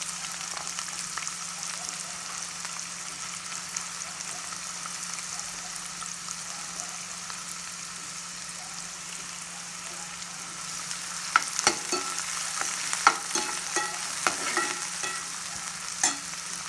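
Finely chopped onions sizzling as they fry in hot oil. In the last third come sharp knocks and scrapes of a utensil against the pan as they are stirred.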